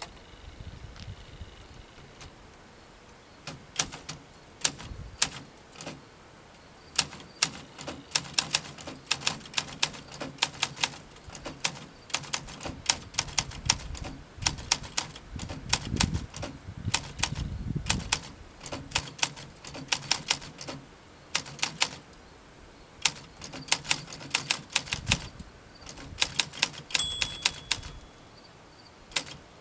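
A 1967 Olympia SM9 portable manual typewriter being typed on: sharp key and typebar strikes in irregular runs with short pauses, and a brief ringing tone near the end.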